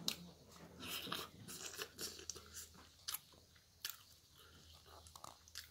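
A person chewing and crunching a mouthful of food close to the microphone, with irregular sharp clicks and smacks.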